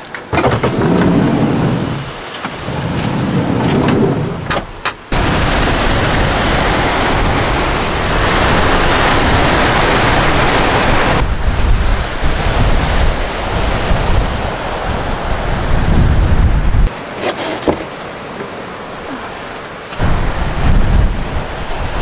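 Strong wind buffeting the microphone with rain falling: a loud, rushing noise with a heavy low rumble that shifts abruptly in level several times.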